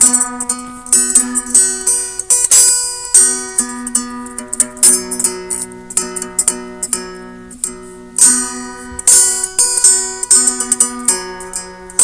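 Instrumental guitar music: plucked and strummed chords, each struck note ringing out and fading before the next.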